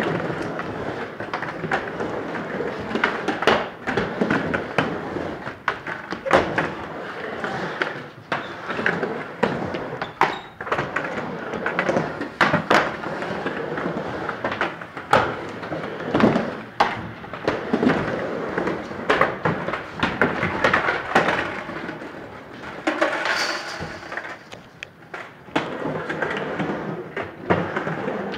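Skateboard wheels rolling on a wooden halfpipe ramp, with many sharp knocks and thuds of the board against the plywood.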